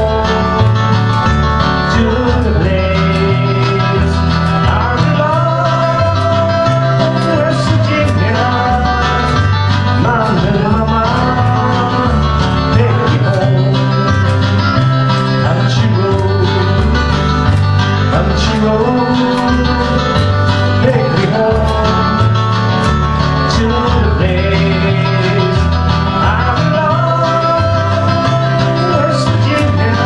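Live country music: a man singing to his own guitar, over a steady bass line that changes note about once a second.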